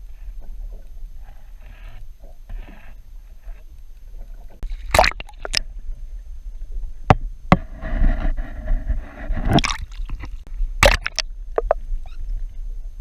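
Water sloshing and gurgling around a boat over a steady low rumble, with several sharp knocks, two of them loudest, about five seconds in and again near the end.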